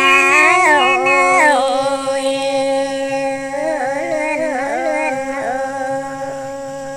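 Women's voices singing a Red Dao folk duet: a long, drawn-out line with wavering ornaments and held notes. It fades gradually and stops near the end.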